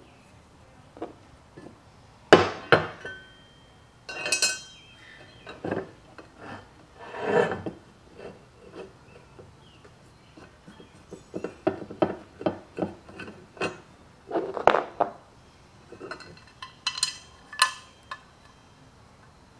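Irregular clicks, knocks and a few ringing metallic clinks of small hardware being handled and fitted together by hand: a black metal bracket, its mounting blocks, Allen head bolts and an Allen wrench.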